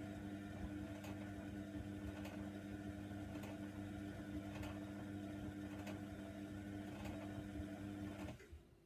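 Hoover Nextra washer dryer running with a steady hum and a faint click about once a second, then cutting off abruptly near the end.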